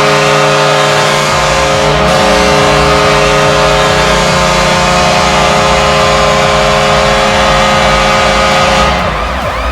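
Washington Capitals arena goal horn blowing one long, loud, steady blast of several tones at once. It cuts off about nine seconds in as the goal song music takes over.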